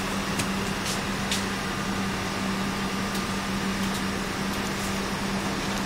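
Steady room hum of an air conditioner, with a low drone, and a few light clicks from handling a laptop.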